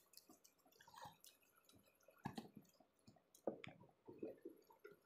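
Faint, wet eating sounds: irregular squishes and smacks of fingers pressing and gathering rice on a banana leaf, and of chewing. The louder smacks come a little past two seconds in and again about three and a half seconds in.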